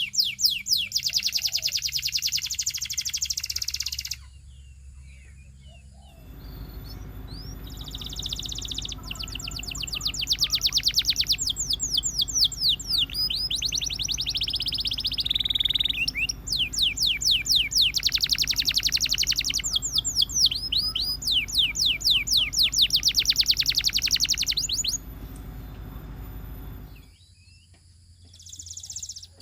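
Russian canary singing: phrases of fast, rapidly repeated high notes in trills and rolls, broken by a short pause about four seconds in and another near the end. A steady low hum sits under the middle of the song.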